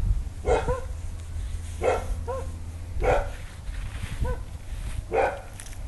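A dog barking repeatedly, short barks about once a second.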